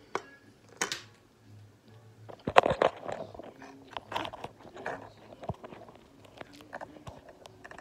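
A person chewing and eating close to the microphone, with short clicks and knocks, some from the phone being handled; the loudest come about two and a half seconds in.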